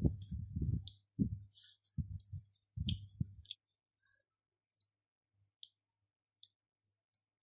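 Close-up eating sounds: chewing with wet, clicking mouth noises and small crackles as fingers pick meat from steamed crab shell. The chewing stops about three and a half seconds in, leaving only faint scattered clicks.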